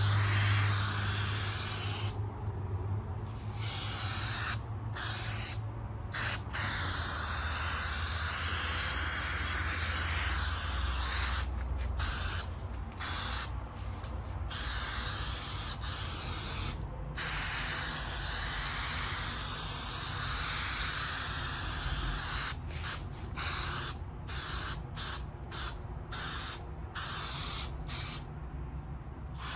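Aerosol can of headliner spray adhesive hissing in long sprays broken by short pauses, with a run of quick short bursts near the end.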